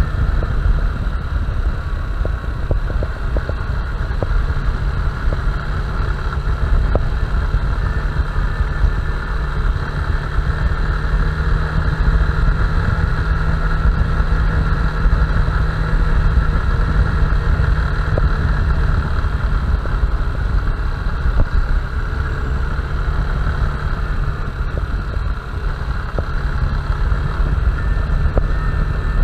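Honda Bros 160 single-cylinder motorcycle engine running at a steady pace while riding, with heavy wind rush on the microphone.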